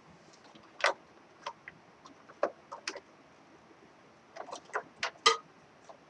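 Scattered sharp plastic and metal clicks and knocks inside a desktop computer as a RAM module is fitted and pushed into its slot, about nine in all, the loudest a little after five seconds in.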